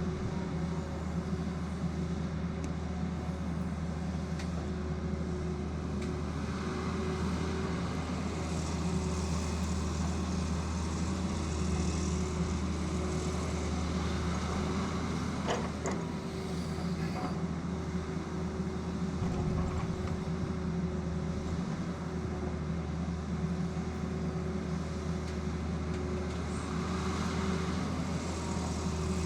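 Tata Hitachi excavator's diesel engine running steadily with a deep, even hum, with a brief metallic clink about halfway through.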